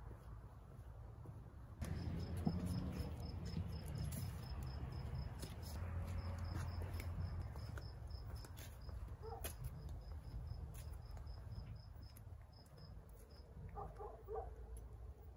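A cricket chirping: a steady run of short, high-pitched pulses, several a second, that starts about two seconds in and stops shortly before the end, over a low rumble and a few light clicks.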